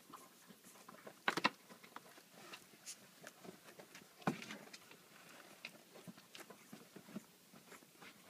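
Young puppies nibbling and mouthing at a hand: faint scattered little mouth clicks and chewing sounds, with louder clicks about a second in and again about four seconds in.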